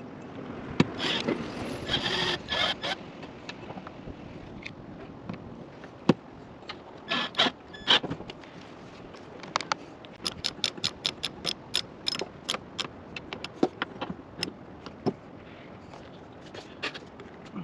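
Metal roof-rack hardware being handled and fitted: scraping and knocking of parts, then a quick run of sharp metallic clicks, about four a second, partway through.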